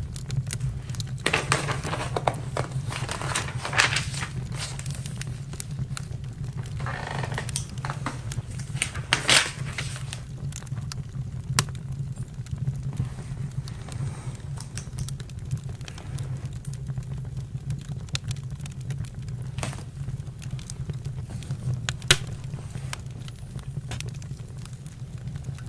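Campfire crackling: sharp pops scattered over a steady low rumble, with denser flurries of crackling in the first ten seconds and a single loud pop about 22 seconds in.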